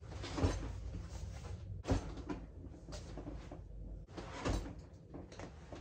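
Handling noise close to the microphone: rustling and bumping, with three louder knocks about half a second, two seconds and four and a half seconds in.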